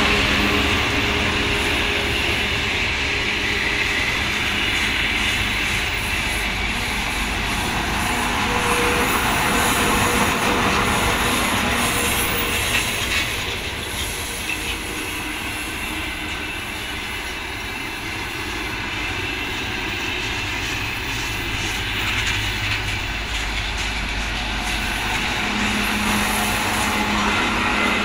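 Train of rail track-maintenance machines and a crew coach rolling past on the rails: steady wheel-on-rail noise, a little quieter through the middle and louder again near the end.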